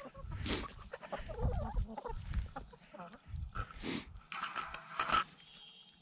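A flock of hens clucking as they peck and scratch at the ground, with short rustling scratches in the dry litter.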